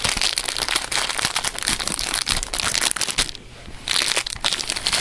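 Thin clear plastic sample packaging crinkling and crackling as it is pried open by hand, pausing briefly about three and a half seconds in before the crackling resumes.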